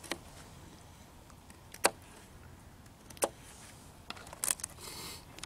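Campfire crackling: sharp single pops every second or so, with a short hiss near the end.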